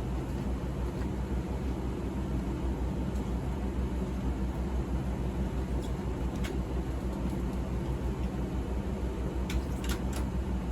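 Steady low machine hum with a background rush of air, like a running fan or motor, and a few faint light clicks about two-thirds of the way in and near the end.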